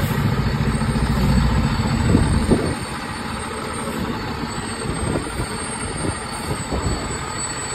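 Diesel engine of a fire department heavy rescue truck running at low speed, a steady low rumble that is louder for the first two and a half seconds, then eases back.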